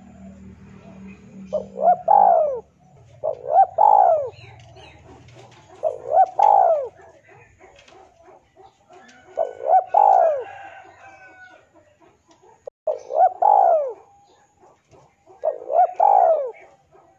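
Male spotted dove cooing, its territorial call to a rival. There are six calls a few seconds apart, each a couple of short notes running into a longer note that rises and falls.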